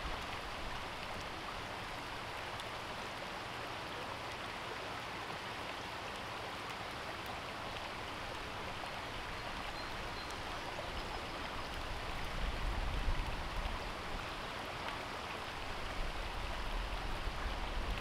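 Shallow creek flowing and trickling over rocks, a steady even rush of water, with a low rumble coming in about two-thirds of the way through.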